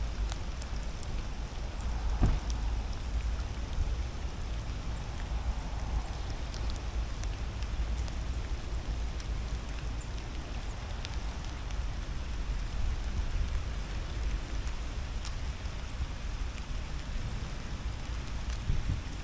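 Steady rain falling on wet gravel and puddles, with scattered single drop clicks over a constant low rumble.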